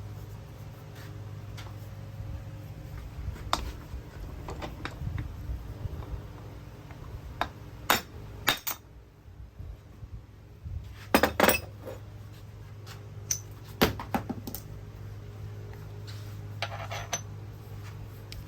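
Metal tools and parts clinking and knocking on a workbench, with a few sharper knocks about a third, halfway and three quarters of the way in, over a steady low hum.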